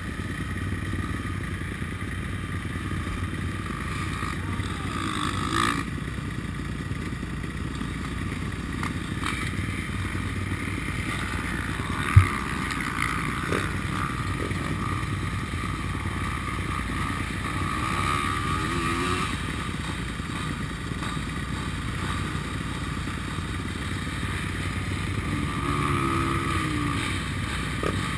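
Enduro dirt bike engines idling in a queue, the nearest one the rider's own bike, with the sound swelling a few times and one sharp knock about twelve seconds in.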